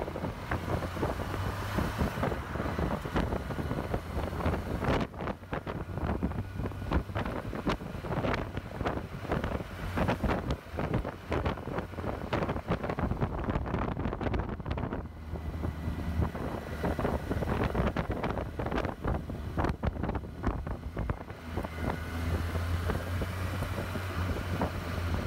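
Kawasaki Versys 1000's inline-four engine running at low town speed in second and third gear, mixed with heavy wind buffeting on the microphone.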